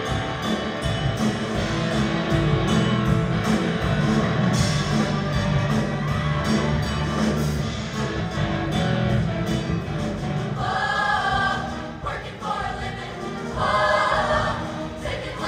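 Show choir singing with band accompaniment. The first part has a full band sound with a steady beat; about ten seconds in, the choir's voices come forward in long held chords.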